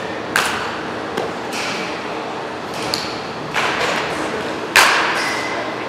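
Baseball bat hitting pitched balls: about five sharp hits, some with a ringing ping, echoing in a large batting-cage hall, the loudest late on.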